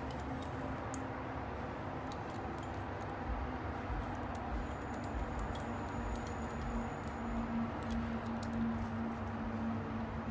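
Faint light clicks and metal clinking from an old rusty screw clamp being handled, its tommy bar sliding and parts knocking together, over a steady background hiss and low hum.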